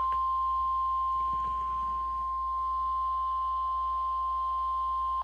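NOAA Weather Radio warning alarm tone: a single steady 1050 Hz tone that stops abruptly near the end, the signal that a severe weather warning message follows.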